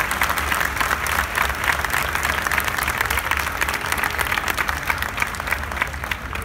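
Large audience applauding, many hands clapping at once, slowly thinning out near the end.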